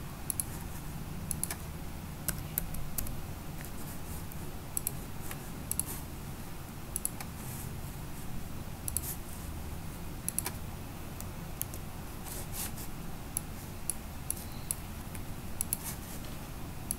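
Scattered, irregular clicks of a computer mouse and keyboard, a few at a time with short gaps between, over a low steady hum.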